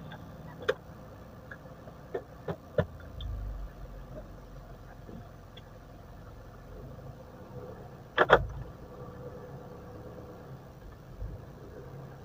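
Mitsubishi Pajero running slowly on a test drive, its engine low and steady, with a few short knocks and a louder double knock about eight seconds in. No brake squeal is heard: the brakes are quiet after new pads.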